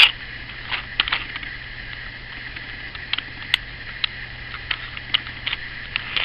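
Light, scattered clicks and taps from handling a cordless drill while a headless panel pin is fitted into its keyless chuck, over a steady low hum.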